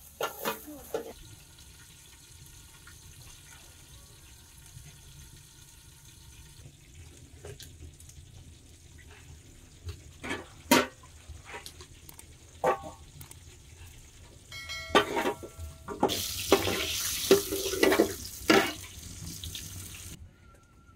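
Kitchen work sounds: several sharp knocks of a glass pounding garlic on a metal plate, a brief ringing clink of metal dishware, then about four seconds of loud splashing, rushing water that stops abruptly.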